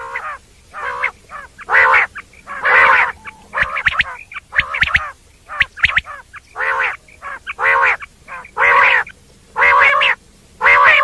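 Common quail calling: a series of short calls repeated about once a second, with thin, sharp notes between them.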